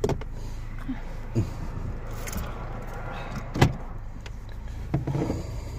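Steady low hum of a Chevrolet car heard from inside the cabin, with a few short knocks, the loudest about three and a half seconds in.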